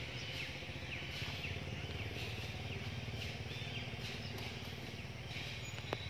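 Outdoor background: a steady low rumble with many short, high, falling chirps scattered through it.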